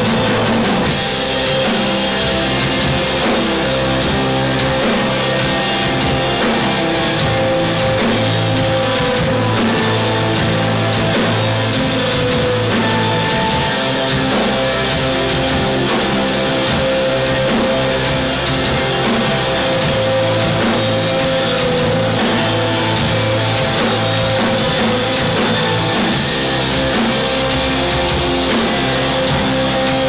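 Live rock band playing loud and steady, with electric guitars over a full drum kit.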